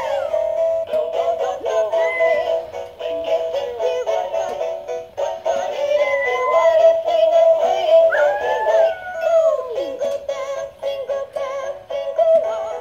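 Singing plush Christmas toys (Santa, reindeer and snowman) playing a Christmas carol in electronic synthesized voices, with a Lhasa apso howling along in gliding notes, including a long howl sliding down in pitch about eight seconds in.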